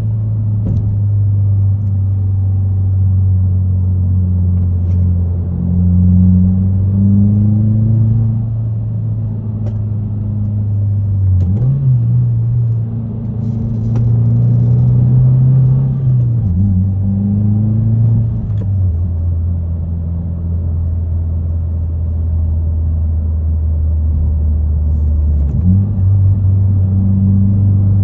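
2022 Subaru WRX's turbocharged 2.4-litre flat-four running through an ETS resonated cat-back exhaust with mufflers, heard from inside the cabin while driving. It gives a steady low exhaust note whose pitch steps up and down a few times.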